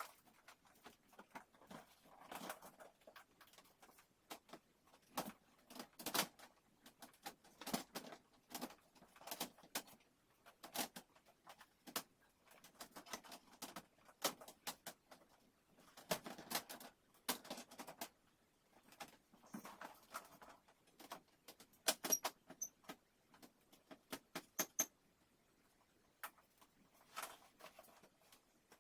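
Irregular clicking, tapping and scraping of small hard objects being handled, in quick clusters with short pauses between them.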